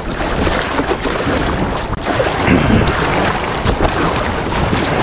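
Steady wind noise on the microphone mixed with ocean water splashing and rushing around a stand-up paddleboard as it is paddled out on the sea.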